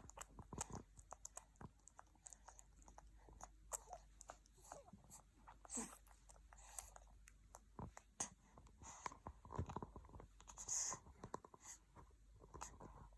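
Young baby's soft mouth noises: scattered quiet smacking and clicking sounds, with a few faint coos.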